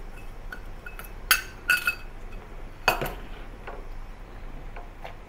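Stainless steel utensils, a ladle and a small bowl, clinking against a stainless steel cooking pot: a handful of sharp metallic clinks, a couple of them ringing briefly.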